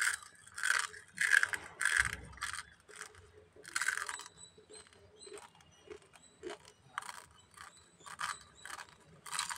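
Raw, uncooked Yippee instant noodles crunching as a dry block is bitten off and chewed. The crunches come in a quick run over the first few seconds, then more sparsely, with another cluster near the end.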